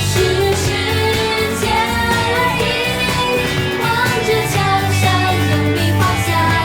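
Chinese pop song playing loudly over a stage sound system with a steady beat, and a melody that bends up and down.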